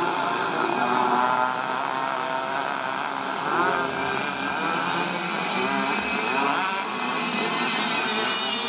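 Several RC racing powerboats running flat out together on two-stroke chainsaw and brushcutter engines: a layered engine whine at several pitches at once, with the pitch sweeping up and down a few times as boats pass and turn.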